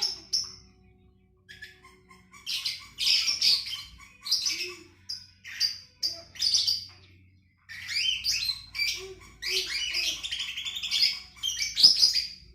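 A songbird singing in bursts of quick chirps and harsher chattering notes, in phrases of one to four seconds with short pauses between them. The song ends with a sharp loud note just before the end.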